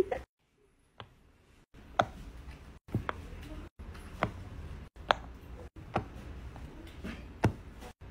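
Silicone pop-it fidget toy bubbles being pressed one at a time, each giving a short sharp pop, about one a second at an uneven pace.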